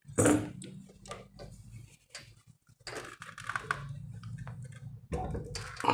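Light clicks, taps and rattles of small mounting hardware, a CPU cooler's backplate and its screws, being handled and fitted, with a sharper knock about a quarter second in.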